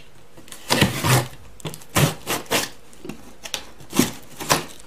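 Cardboard shipping box being cut open along its taped seam with a small hand blade: a series of short, irregular scraping strokes with cardboard rubbing.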